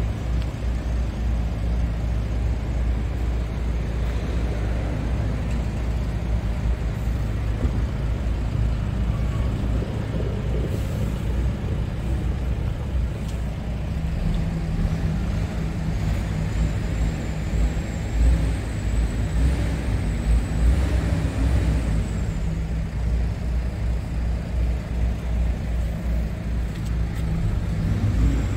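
Scania R410 tractor unit's six-cylinder diesel engine idling steadily, heard up close.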